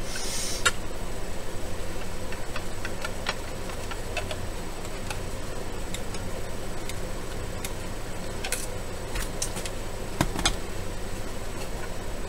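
A brief rustle, then scattered light clicks and scrapes of a hand tool working a small metal radio part clean, over a steady low electrical hum.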